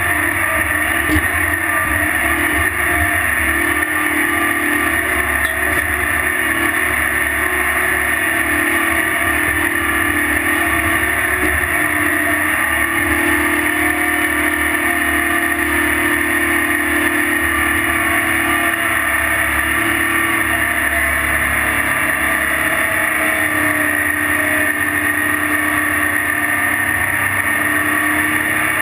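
Tractor's diesel engine running steadily under load while towing an earthmoving scraper, heard close up with no break or change in pitch.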